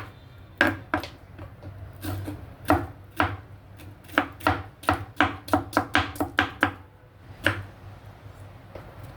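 Knife chopping fresh okra on a cutting board, by hand rather than blending. A series of sharp strokes speeds up to about three a second in the middle, then a last single chop after a short pause.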